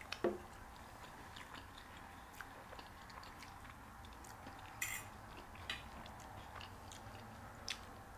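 Faint chewing of soft, cheesy enchiladas, with a few scattered small clicks and smacks of eating. The loudest click comes a little under five seconds in.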